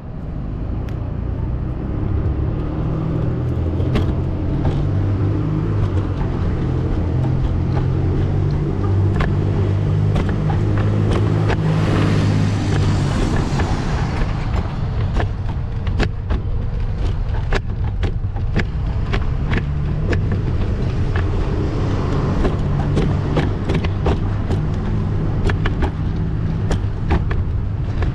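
City street traffic: a steady low engine hum with a vehicle passing about twelve seconds in, broken by many sharp clicks and rattles.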